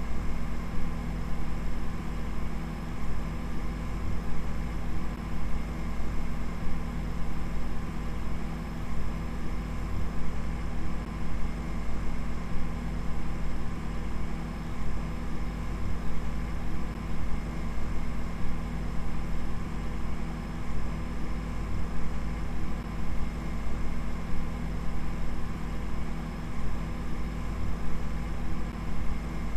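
A steady deep machine-like hum with several fainter held tones over it, fluttering rapidly in loudness and never changing in character.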